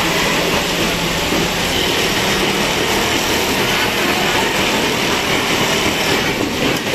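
Automatic template sewing machine stitching steadily: the industrial lockstitch head and the carriage driving the fabric template make a continuous, even mechanical noise.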